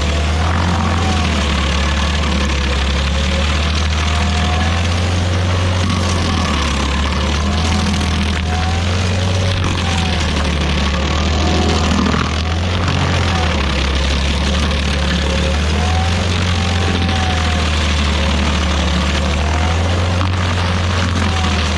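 Rayco RG50 stump grinder's engine running hard while its cutter wheel grinds through a stump. The engine note wavers and sags several times as the wheel bites into the wood.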